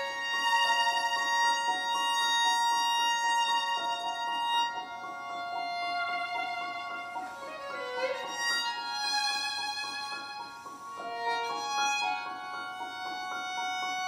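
Classical chamber music led by a violin playing slow, long held notes, with a slide in pitch about eight seconds in.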